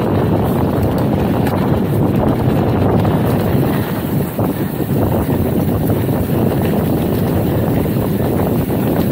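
Wind rushing over the microphone and mountain-bike tyres rolling over loose, sandy dirt at speed, with scattered small clicks and rattles.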